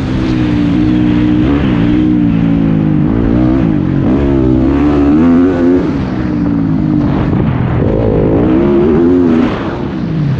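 Dirt bike engine being ridden hard, its pitch climbing and falling again several times as the throttle is opened and rolled off, heard from a helmet-mounted camera.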